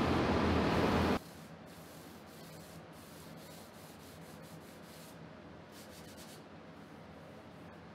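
Hand sanding the cured finish on a solid mahogany tabletop with a 400-grit sanding block between coats: a faint, steady rubbing with small irregular scratches. Before it, a loud steady rushing noise with a low hum cuts off sharply about a second in.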